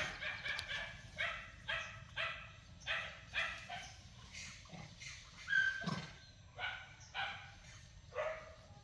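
A series of short, high yelping animal calls, roughly two a second with brief pauses in between.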